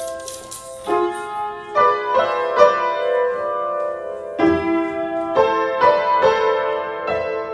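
Piano played slowly, a series of chords each struck and left to ring.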